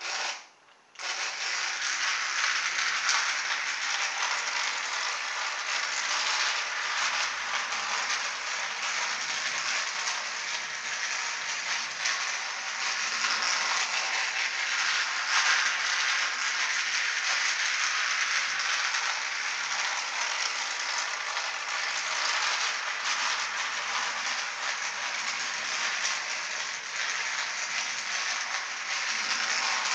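Battery-powered toy electric train running round its track: a steady rattling whir of the small motor and wheels, starting about a second in after a brief knock. Its moving parts are freshly oiled.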